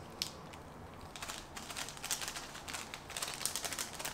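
Faint crinkling and rustling of a small seasoning packet being handled and shaken out, with scattered light clicks that grow busier from about a second in.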